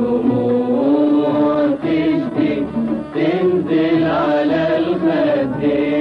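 An old recording of an Egyptian-style Arabic song with a melody that glides and wavers over a steady accompaniment.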